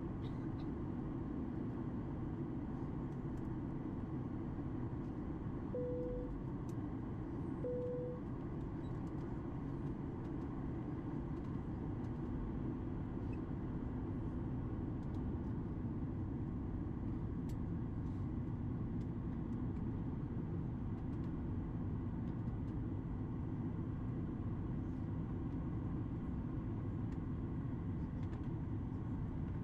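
Steady in-flight cabin noise of a Boeing 737 MAX 8 airliner on approach: an even rumble of engines and airflow heard from inside the cabin. Two short tones of the same pitch sound about two seconds apart, around six seconds in.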